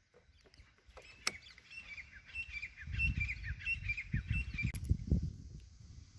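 A bird chirping, a quick run of short falling notes about three or four a second that stops near the end. Under it, from about halfway, a low uneven rumble.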